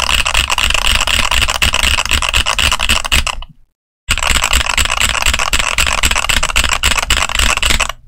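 Fast typing on a mechanical keyboard fitted with Flaming Skull Ice Blue tactile switches: a dense, rapid stream of keystroke clacks. The sound drops out abruptly about three and a half seconds in and comes back half a second later.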